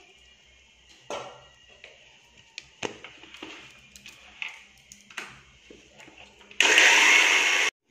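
Light clicks and knocks of a plastic lid being fitted onto a small kitchen mixer-grinder jar, then the mixer grinder switches on, grinding soaked rice with water: a loud, even noise for about a second that cuts off suddenly.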